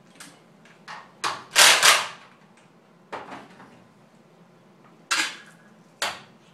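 Sharp clicks and metal knocks as the dial-indicator Z-height gauge tool is released and taken out of a CNC milling machine's spindle. There are about seven separate knocks, the loudest two close together about a second and a half in.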